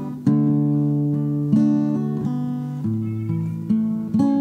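Acoustic guitar strumming chords, a fresh chord struck about every second, in the instrumental opening of a song.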